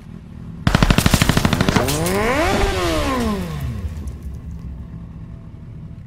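Gunfire sound effect: a rapid burst of automatic fire, about a dozen shots a second, lasting about a second. It is followed by a whoosh that rises then falls in pitch over a low rumble that slowly fades.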